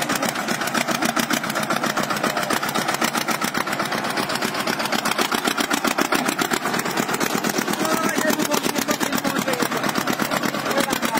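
Diesel engine of a small Sonalika tractor running with a steady, rapid chugging as the tractor climbs stone steps.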